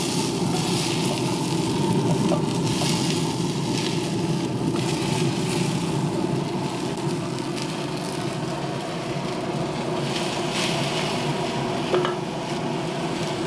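Diced potatoes and onion sizzling as they are tipped into a hot cast iron Dutch oven and scraped in and stirred with a spatula, over a steady low hum. A single sharp knock about twelve seconds in.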